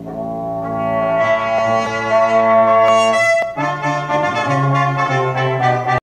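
Music with long held chords, swelling and changing chord about three and a half seconds in, played loud through the car stereo of a 2013 Toyota Avanza as an audio system test.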